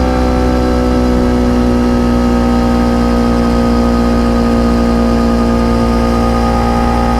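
Kawasaki Ninja 300's parallel-twin engine running at a near-steady speed through the stock exhaust, its pitch easing slightly lower, over a steady low wind rumble.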